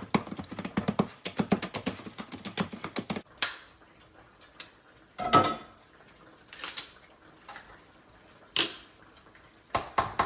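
A utensil knocking rapidly against a pot or bowl as boiled potatoes are mashed with butter, a quick run of taps for about three seconds, then stopping. After that come a few separate clinks and knocks of kitchenware.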